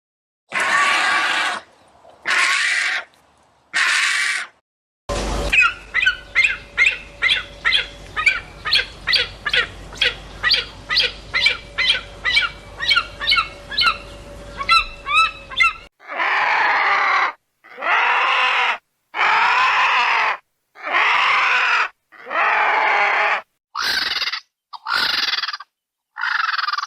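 Harsh bird calls from several spliced recordings. First come three raspy calls. Then a quick run of short calls, about two a second, over a steady hum. Then a series of longer calls of about a second each.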